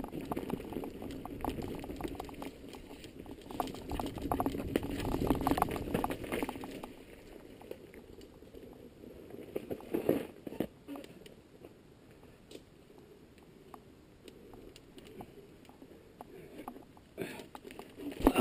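Mountain bike rolling down a stony singletrack: tyres crunching over gravel and the bike rattling, busy and loud for the first six or seven seconds, then quieter with scattered knocks, a louder jolt about ten seconds in and a cluster of knocks near the end.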